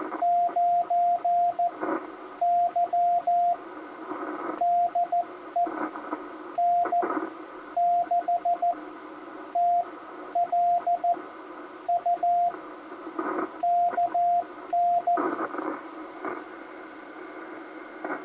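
Morse code (CW) from a Ten-Tec Argonaut 5 QRP transceiver: a single steady beep tone keyed in short and long elements, with radio band hiss and static swelling between the groups. It is part of a short amateur-radio CW contact. The keying stops about fifteen seconds in, leaving static.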